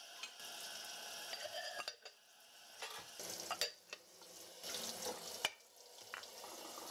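Washed ceramic bowls and mugs set down in a wire dish-drying rack: a few light clinks and knocks, over a faint steady hiss.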